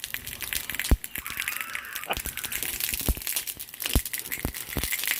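Crinkling and rustling of materials being handled, with several sharp knocks scattered through it.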